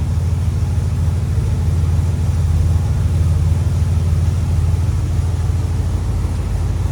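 1966 Chevrolet Impala Super Sport's 327 V8 idling steadily, a low, even exhaust note.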